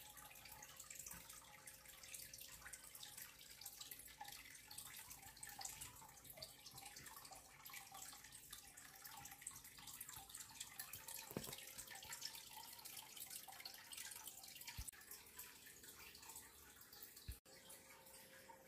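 Faint trickling and dripping of water, a fine hiss full of tiny ticks, over a faint steady hum.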